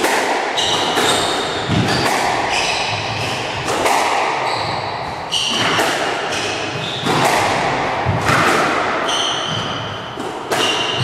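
Squash rally: the ball cracks off rackets and the walls of the court about once a second, each hit echoing briefly. Between the hits, shoes squeak sharply on the wooden floor.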